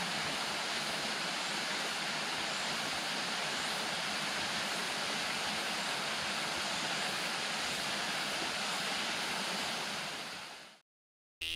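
Small waterfall splashing into a pool: a steady, even rush of falling water that fades out near the end. Just at the very end, a cartoon sound effect with a falling tone begins.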